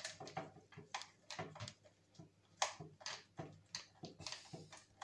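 Irregular clicks and knocks as a hair dryer's casing is handled and opened up, with a sharper knock about halfway through.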